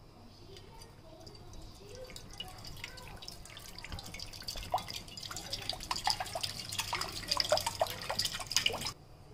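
Water pouring into a stainless-steel kadai, splashing and plinking on the metal. It grows steadily louder and stops abruptly near the end.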